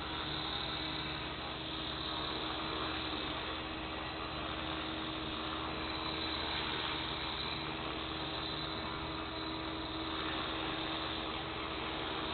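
Align T-Rex 450 Sport electric RC helicopter hovering: its electric motor and rotor blades run steadily at a constant pitch, a single held tone over a rushing whir.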